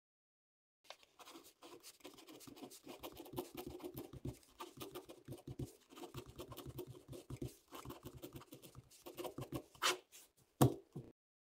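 Ballpoint pen writing on graph paper: a run of short scratching strokes starting about a second in, ending with a longer, louder stroke and a sharp knock near the end.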